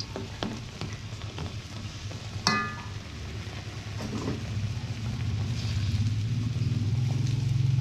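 Food frying and sizzling in a pan while a utensil stirs it, with scattered scrapes and clicks and one ringing metal clink about two and a half seconds in. A low steady hum grows louder near the end.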